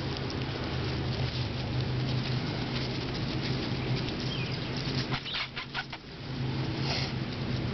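Boston terrier puppies pattering and rustling about in grass, over a steady low hum. A quick run of sharp clicks comes about five seconds in.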